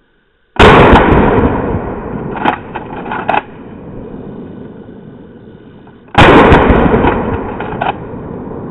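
Two blasts from a Mossberg Maverick 88 12-gauge pump shotgun, about five and a half seconds apart, each dying away slowly. Between them comes a quick run of sharp clacks from the pump action being worked, and another clack near the end.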